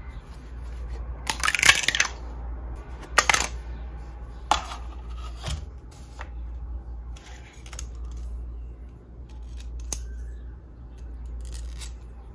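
A 3D printer's spring-steel build sheet being flexed, the freshly printed plastic part popping off it in two loud crackling snaps, followed by lighter clicks and taps as the printed hinge is handled; a steady low hum runs underneath.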